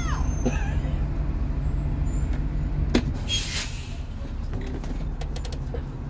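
School bus engine idling steadily, heard from inside the bus. About halfway through comes a sharp click, then a short hiss of air from the air brakes.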